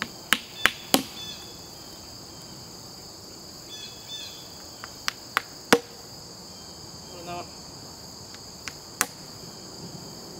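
A hammer tapping wooden mushroom spawn plugs into drilled holes in a hardwood log: three quick strikes near the start, three more about halfway through, and a single one near the end. Insects drone steadily behind.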